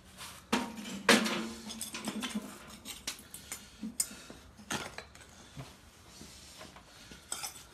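A hand tool scraping and clinking irregularly in hot, smoking casting sand as a freshly poured bronze casting is dug out of its wooden flask.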